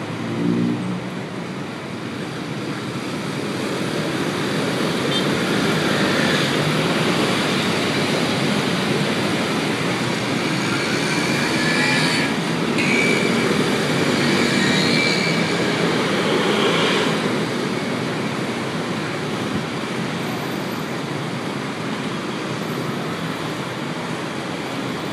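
Dense city traffic: a mass of motor scooters and cars moving off through an intersection, a steady wash of engine and tyre noise that builds over the first few seconds and eases a little in the last third.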